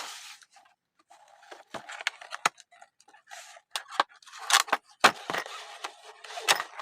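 Handling noise while a car clutch-and-brake pedal lock is unpacked by hand: irregular rustles and scrapes with sharp clicks and taps, busier in the second half.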